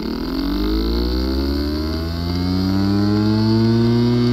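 Hard drive with a physically damaged disk assembly, its spindle motor spinning up: a whine that rises in pitch and settles to a steady tone about three seconds in.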